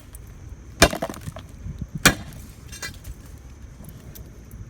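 Hammer blows striking a concrete footing to crack it off a vinyl fence post: two sharp strikes about a second apart, then a weaker third.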